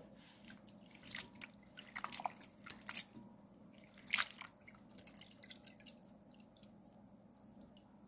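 Faint water drips and small splashes as sliced bellflower root is rinsed and handled in a bowl of water. They come scattered through the first half and die away after about five seconds.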